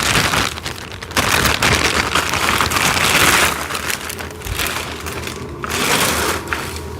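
Plastic packaging crinkling and rustling as parts are unwrapped, loudest over the first few seconds.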